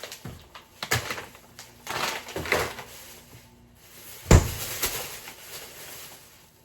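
Grocery packages being handled and put away, with scattered knocks and rustles and one sharp, loud thump a little after four seconds in.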